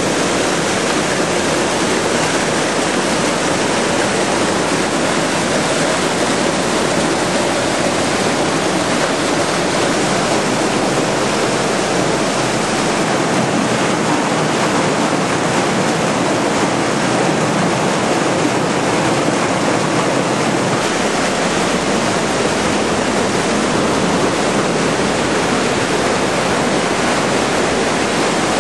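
Waterfall and white water of the River Lyd: a loud, steady rush of water falling and churning in a pool, unchanging throughout.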